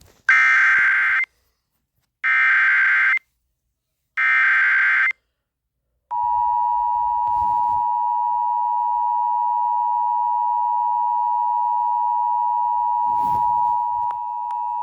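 Emergency Alert System SAME header: three one-second bursts of warbling digital data tones, a second apart, encoding an Evacuation Immediate (EVI) alert. About six seconds in, the steady two-tone EAS attention signal (853 and 960 Hz) starts and sounds continuously, announcing the voice message that follows.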